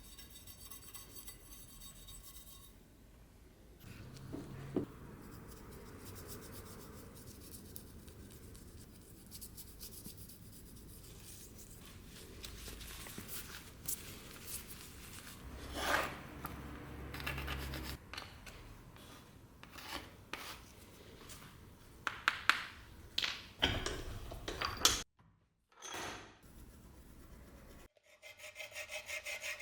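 Hand-tool rubbing and scraping: repeated filing or sanding strokes on the knife, with a few sharper taps and knocks near the middle and toward the end.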